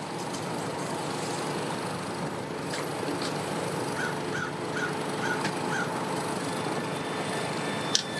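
Steady outdoor background noise, with a bird giving five short calls in quick succession about four seconds in.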